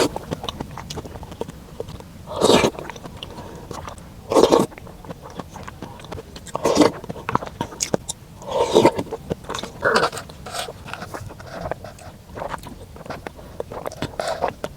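Close-miked eating: chewing with small wet clicks, broken by short louder bite or chew sounds every couple of seconds.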